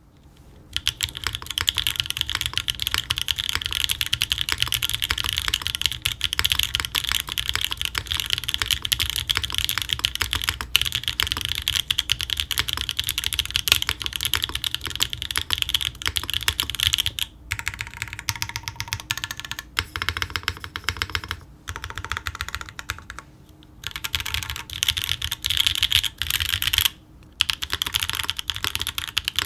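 Mode Design Tempo 60% aluminium-case mechanical keyboard being typed on fast and continuously, a rapid run of key clacks broken by a few short pauses late on.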